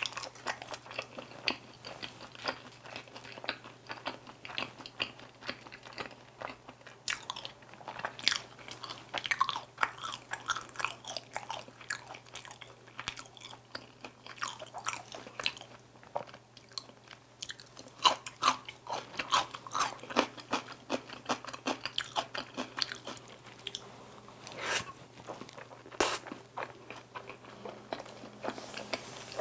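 Chewing and crunching of crisp Korean glazed fried chicken pieces (dakgangjeong), a steady run of short crackles from bite after bite.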